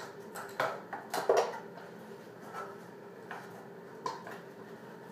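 Small hard makeup items, such as an eyeshadow palette and brush, being handled: a few sharp clicks and knocks, clustered a little after the start, with one more near four seconds.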